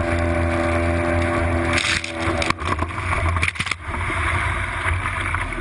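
Boat engine running steadily, with a cluster of knocks and rattles around the middle.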